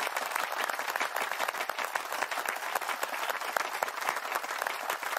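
Applause: many hands clapping steadily.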